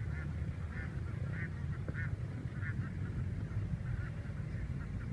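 A flock of domestic ducks quacking, with short calls repeating every half second or so, over a steady low rumble.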